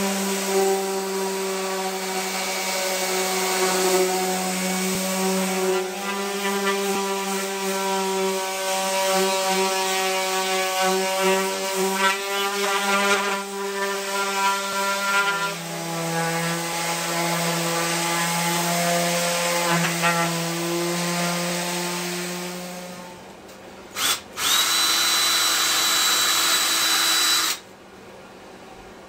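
Random orbital sander running on pallet-wood boards: a steady motor hum whose pitch drops slightly about halfway through, then dies away. Near the end a cordless drill runs with a steady high whine for about three seconds.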